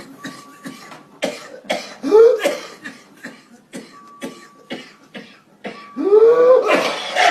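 A person coughing in repeated bouts of short, rapid coughs, some of them voiced, with the loudest bout near the end.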